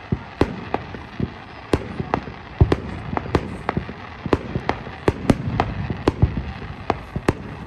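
Aerial fireworks going off: an irregular run of sharp bangs and crackling reports, several a second, with one heavier, deeper boom about two and a half seconds in.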